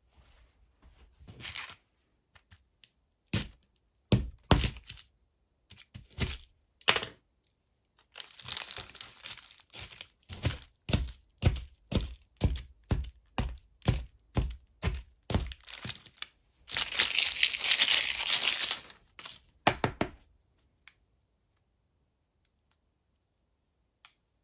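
Small plastic pick chipping and scraping into a crumbly yellow 'GOLD' bar block, which cracks and crumbles onto a paper plate. Separate cracks at first, then a quick run of scrapes about two a second, then a couple of seconds of continuous crumbling.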